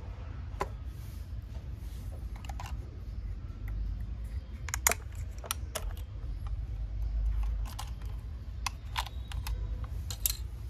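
Irregular light clicks and taps of small hard objects, the sharpest about five seconds in, over a low steady hum.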